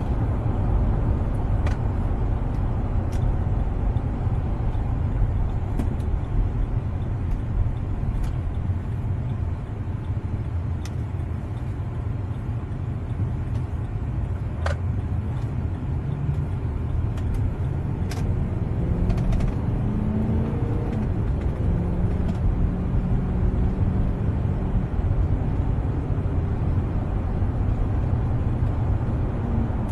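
Road and engine noise inside a moving vehicle's cabin: a steady low rumble, easing a little about a third of the way through, with a few faint clicks.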